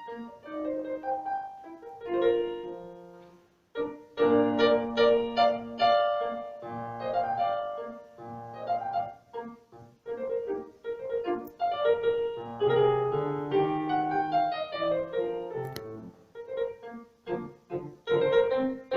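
Piano playing a slow, classical-style piece of melody and chords, with a brief pause about four seconds in.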